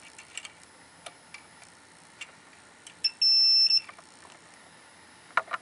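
Multimeter continuity tester giving one steady, high-pitched beep of under a second, the sign of a closed circuit across the push-button's contacts. A few faint clicks of the probes and button come before it.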